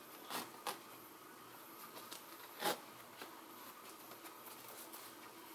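Rope laces being pulled and adjusted through the eyelets of a knit Yeezy 350 V2 sneaker: faint rustling with a few brief scrapes, the loudest a little under three seconds in.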